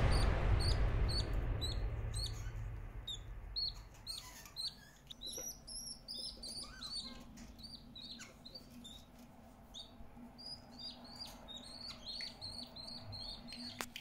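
Ten-day-old budgerigar chicks peeping in many short, thin chirps, several a second, begging as the mother budgie feeds them. Background music fades out over the first couple of seconds.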